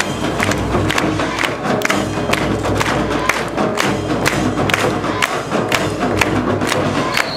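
Japanese festival music of drums and gongs struck in a quick, steady beat, with the float bearers shouting and a crowd behind them.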